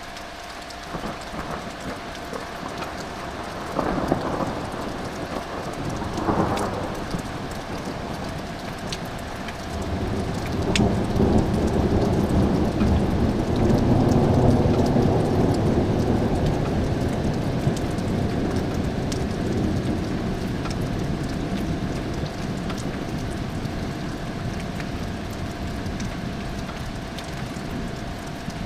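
Thunder during a thunderstorm with steady rain falling: two short cracks about four and six seconds in, then a long rolling rumble that builds about ten seconds in, peaks a few seconds later and slowly dies away.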